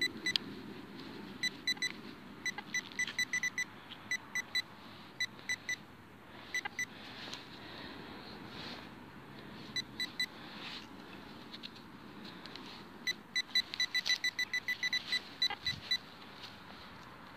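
Metal detector beeping over a buried metal target: runs of short, high beeps, quick and repeated in several clusters, each run signalling metal in the hole.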